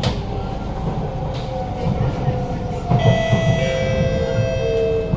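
Inside a Kawasaki–CRRC Sifang C151A metro car on the move: the traction motors' tones slide down in pitch as the train slows, over a steady low rumble of wheels on rail. About three seconds in, a cluster of higher whining tones joins.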